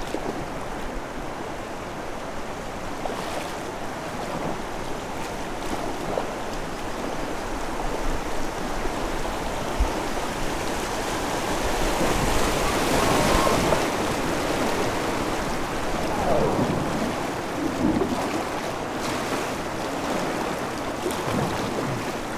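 River water rushing over a flat rock slab, a steady rush that swells about halfway through.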